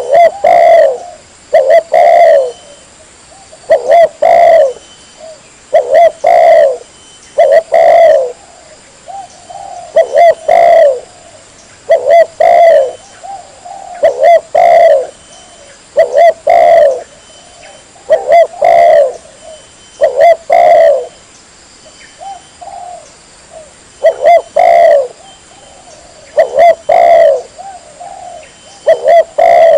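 Spotted dove (tekukur) cooing repeatedly: loud phrases of two or three coos, each phrase recurring about every two seconds.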